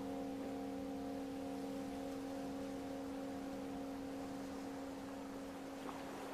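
Singing bowls resting on a person's body ringing on after being struck, several steady overlapping tones slowly fading.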